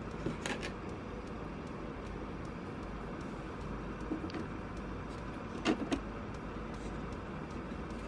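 SO-DIMM RAM modules being handled and pressed into the memory slots of a late-2015 27-inch iMac: a few light clicks and taps, the sharpest a quick pair about six seconds in, over steady background noise.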